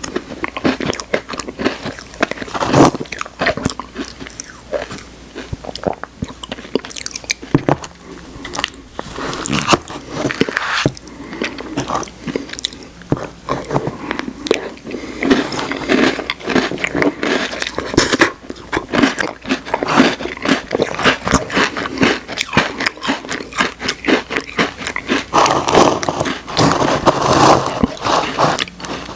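Close-miked mouth sounds of someone eating Oreo soft-serve ice cream: wet chewing and smacking with many quick clicks.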